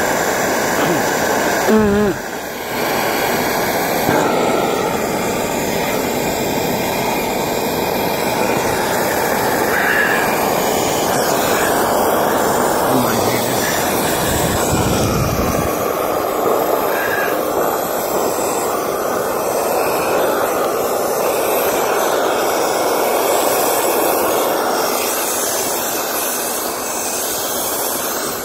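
Dryer-vent cleaning equipment running: a loud, steady rush of air through the vent duct.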